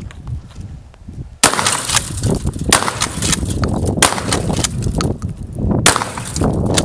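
Gunfire: a sudden loud crack about a second and a half in, then more sharp cracks every second or two over continuous loud noise.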